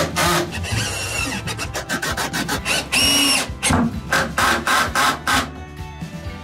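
Sandpaper rubbed by hand in quick, irregular strokes, stopping about five and a half seconds in.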